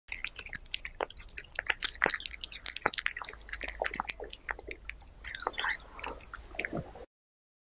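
A cat chewing chunks of raw meat, close-miked: a quick, irregular run of wet smacks and sharp clicks of teeth on flesh. The sound cuts off suddenly shortly before the end.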